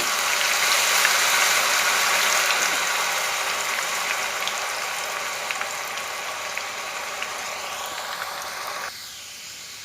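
Grated potato strands deep-frying in hot oil in a kadhai: a dense crackling sizzle that slowly dies down, then drops away sharply near the end.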